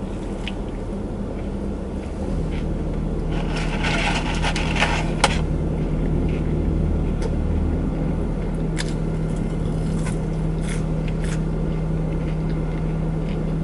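Steady hum of a parked car idling inside the cabin, stepping up a little about two seconds in. Paper wrapper rustling around four seconds in, and scattered small clicks and chewing noises from eating a burger and fries.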